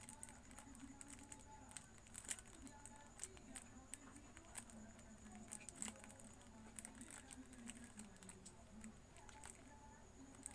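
Very quiet room with faint, irregular clicks from the buttons of a small infrared LED-strip remote being pressed.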